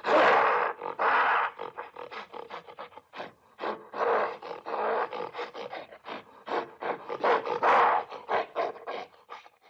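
Gorilla roaring in several loud bursts, with a fast run of short, clipped calls between them.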